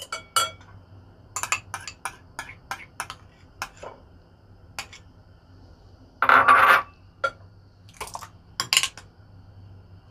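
A metal spoon and chopsticks clinking and tapping against a glass mixing bowl and a small ceramic bowl while butter is scraped off into the bowl, with a louder scrape of under a second about six seconds in.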